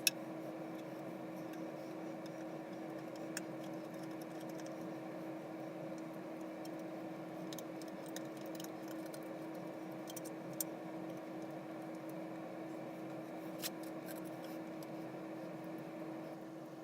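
Steady low hum with a handful of short, sharp clicks and light rattles, scattered a few seconds apart, from small metal parts and tools being handled.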